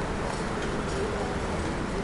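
Steady wind and road rumble from riding a Ninebot Max electric kick scooter in city traffic.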